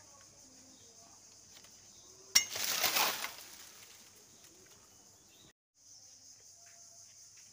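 A sharp snap about two seconds in, followed by about a second of crackling as dry leaves and twigs are pushed through. A steady high insect drone runs underneath.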